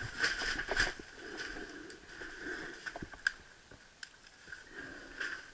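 Quiet rustling with scattered light clicks and knocks from handling and moving among old paper records and debris, busiest in the first second, with a few single clicks later.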